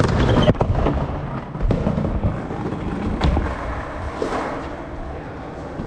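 Skateboard wheels rolling across skatepark ramps with a rumble, broken by a few sharp clacks of the board hitting the surface, mostly in the first half.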